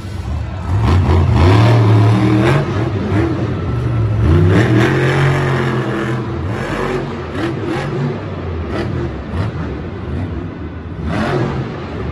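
Monster truck engines revving hard, their pitch climbing and falling in repeated surges: a strong burst about a second in, another about four seconds in, and a smaller one near the end. They are supercharged V8s, run in an echoing covered stadium.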